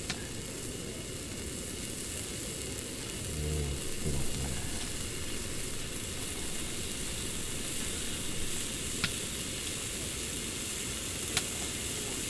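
Pork belly slices sizzling steadily on a griddle pan over a portable gas stove, the pan now hot enough to fry. A few sharp clicks from the metal tongs come at the start and again in the second half.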